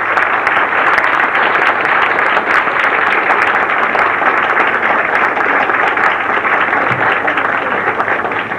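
A large audience applauding: dense, steady, loud clapping.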